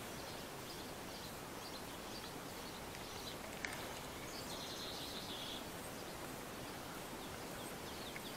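Faint outdoor background hiss. A single soft click comes about three and a half seconds in, and a short, steady, high-pitched call lasting about a second comes a second later.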